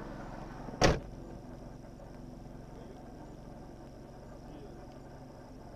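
A car door slams shut once, loudly, about a second in, over a car engine idling and a steady high-pitched insect chirring.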